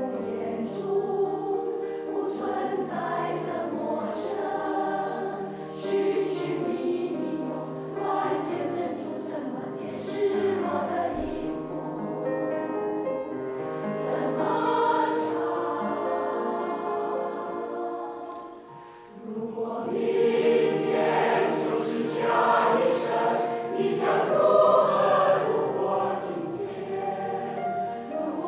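Choir singing a slow song in unison and harmony, with a short lull just past the middle before the voices come back in fuller.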